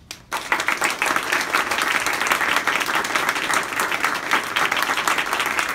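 Audience applauding, breaking out just after the start and holding steady.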